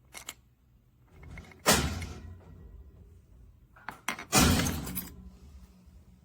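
Handling of a wooden busy cube: two light clicks, then two sliding knocks, one a little under two seconds in and one about four seconds in, each fading over about a second.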